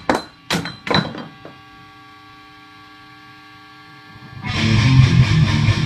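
Heavy-metal music on distorted electric guitar: a few sharp stabs, then a faint held chord ringing for about three seconds. The loud riff comes back in about four and a half seconds in.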